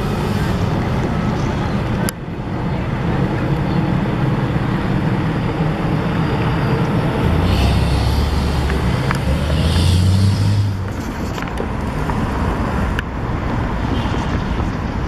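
Steady vehicle rumble, with a deeper rumble swelling for a few seconds in the middle.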